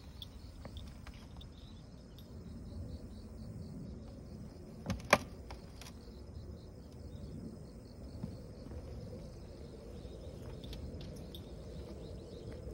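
Outdoor ambience with faint insects chirping in an even, repeating series of high ticks, typical of crickets on an autumn field path. About five seconds in comes one sharp knock, the loudest sound, with a smaller one just before it.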